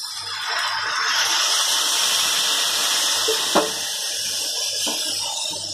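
Water poured from a bottle into an aluminium pressure cooker of hot potato and tomato curry, a steady pouring and splashing that stops shortly before the end, with one light knock past the middle.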